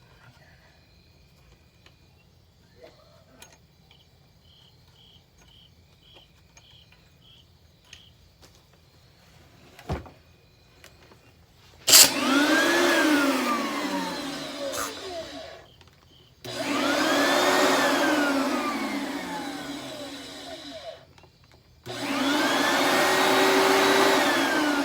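Oreck bagged vacuum cleaner's motor switched on three times, each time whining up in pitch, then sagging slowly and cutting off. Before the first start there are a few faint clicks and a knock.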